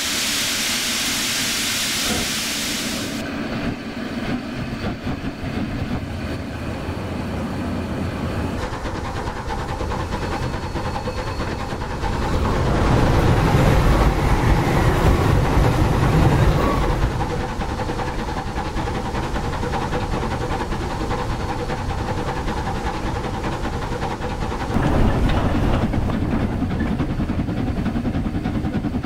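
Model steam locomotives running on a model railway track with realistic steam sound effects: a loud burst of steam hiss at the start, then steady running noise. The rumble swells as a model Bulleid Pacific passes close about twelve to seventeen seconds in, and again near the end as the Schools class locomotive passes.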